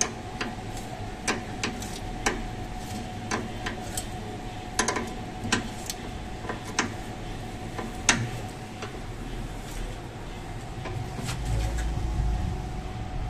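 Irregular sharp metallic clicks and taps of a spanner working the tie-rod adjusting nut under a car during a wheel alignment, setting the front wheel's toe, over a steady faint hum. A low rumble comes in near the end.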